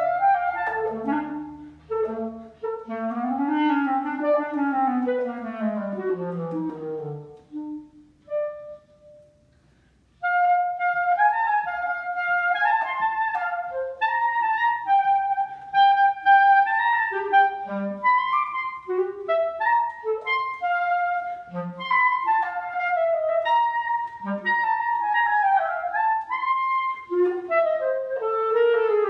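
Solo clarinet playing a fast, restless piece: quick runs that sweep up and then down, a brief pause about a third of the way in, then held high notes broken by quick figures and short low notes.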